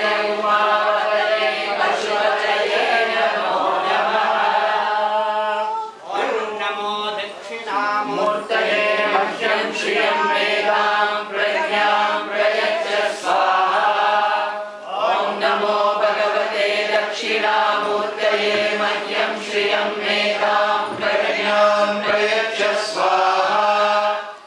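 Voices chanting Vedic Sanskrit mantras together in a steady recitation, with a short breath pause about six seconds in and another just before the end.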